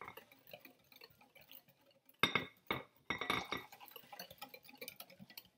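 Wire whisk clinking against a glass mixing bowl as it beats a chocolate custard's egg mixture while warm milk is added a little at a time, tempering the eggs. Faint ticking at first, two sharp clinks a little past two seconds in, then a quick run of clicking taps.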